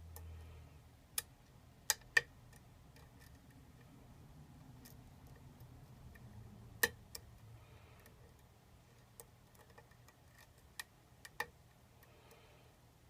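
Lock pick working the pins of a challenge lock: scattered sharp metallic clicks at uneven intervals, about a dozen, the loudest around two seconds in and near the middle.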